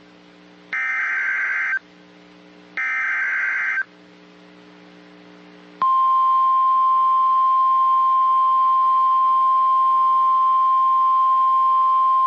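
NOAA Weather Radio emergency alert: the last two of the three SAME digital header bursts, harsh buzzy data screeches about a second long and a second apart, then from about six seconds in the steady 1050 Hz warning alarm tone. Together they signal that a new warning is being broadcast and set off alert-capable weather radios.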